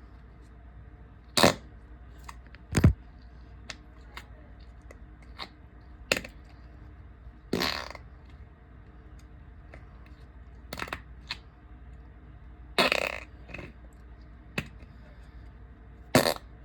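A string of separate short fart noises, about ten over sixteen seconds, most of them brief and two drawn out for about half a second.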